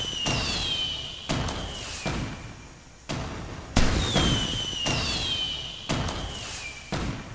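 Fireworks sound effect: a run of bangs, each dying away, with a falling whistle over them. The same sequence repeats after about four and a half seconds, as a loop does.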